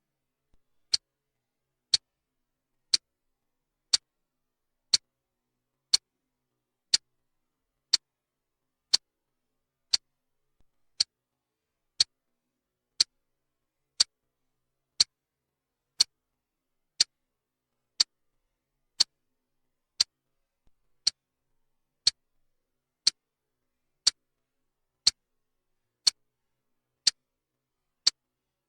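Clock ticking: one sharp, bright tick each second, with silence between the ticks.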